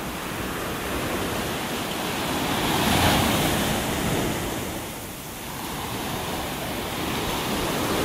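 Heavy surf breaking and washing up a sandy beach around a fallen tree, a steady wash of noise that swells to a crash about three seconds in, eases off around five seconds, then builds again with the next wave.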